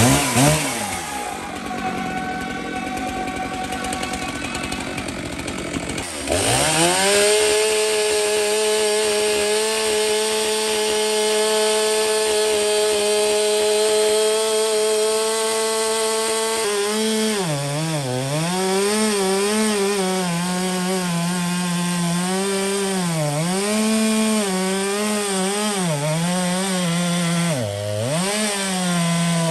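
Two-stroke chainsaw starting up about six seconds in and running at full throttle while cutting through the end of a large log. About halfway through, its engine pitch starts dipping and recovering again and again as the chain is pressed into the wood.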